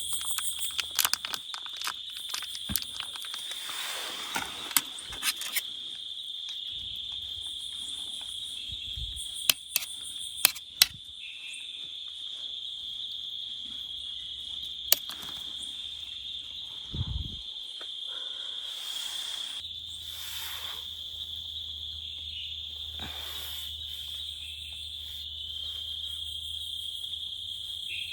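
Insects trilling steadily at one high pitch, with scattered sharp clicks and knocks, a few louder ones about ten seconds in and another around fifteen seconds.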